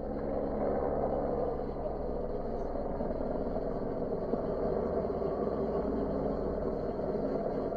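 A low-flying aircraft passing overhead: a steady engine drone whose low humming tones drop away about two and a half seconds in, leaving a steady rushing noise.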